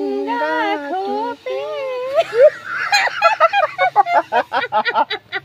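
A woman and a young man singing a slow song together in long held notes, then, about two seconds in, breaking off into hearty laughter with rapid ha-ha peals, about five a second.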